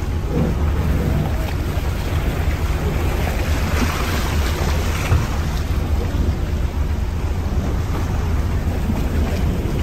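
Icebreaker hull ploughing through drift ice: a steady low rumble from the ship, with the hiss and grinding of broken ice floes and churned water sliding along the side of the hull.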